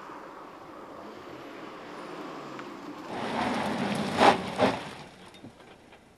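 Audi RS3 Sportback driving past at speed: road and engine noise building to a close pass about four seconds in, then fading away.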